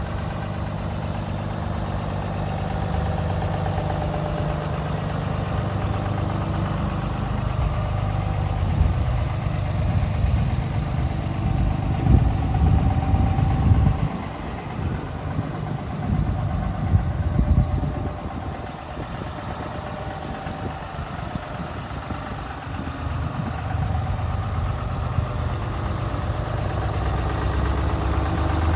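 Ram 2500's 6.7-litre Cummins turbo-diesel inline-six idling steadily. Gusts of wind rumble on the microphone around the middle.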